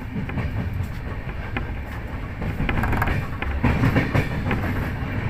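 Train running on the rails: a steady rumble with wheel clicks and knocks over the track, getting louder and busier from about three and a half seconds in.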